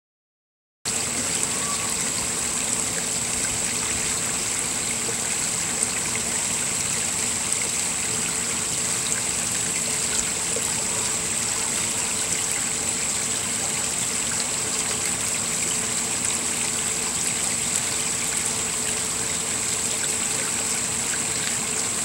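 Steady, even rushing noise with a constant high-pitched whine through it, cutting in abruptly about a second in.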